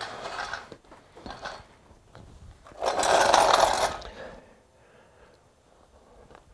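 Handling noises of a steel ATV snow-plow push frame and its mounting hardware on a shop floor: a few short scrapes, then a louder scrape lasting about a second just before the middle.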